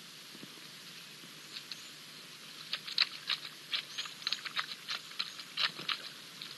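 African wild dog lapping water: a quick, fairly even run of short wet clicks, about four or five a second, starting faintly and growing denser from about three seconds in. Faint high chirps of small birds sound now and then.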